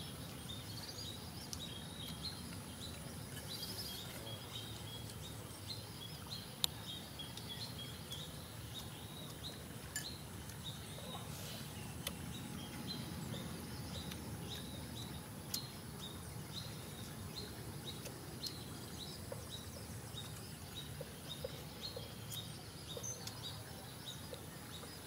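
Outdoor forest ambience: short high chirps repeating throughout, a faint steady high-pitched drone, and a few sharp clicks, the loudest about six and a half seconds in.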